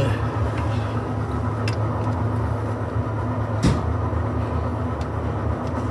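Steady low mechanical hum with one sharp click about three and a half seconds in.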